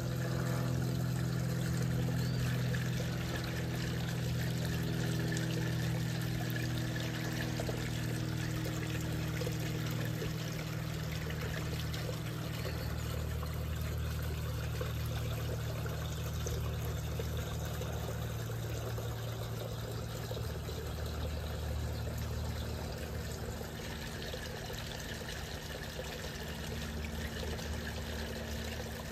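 Water pouring and trickling steadily into a garden fish pond, with a low steady hum underneath.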